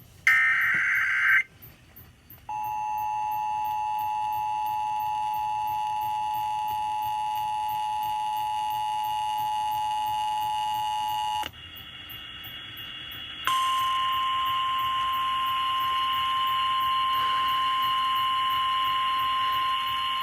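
Emergency Alert System tones relayed over FM radio for a severe thunderstorm warning. A short warbling burst of the SAME digital header comes first. The steady two-tone attention signal follows for about nine seconds. After a two-second pause, the single steady NOAA Weather Radio warning tone begins and holds.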